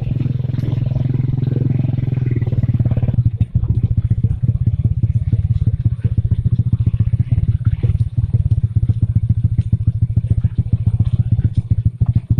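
Motorcycle engine running while riding, a steady low drone. About three seconds in the sound dips briefly, and after that it turns into a rapid, even pulsing.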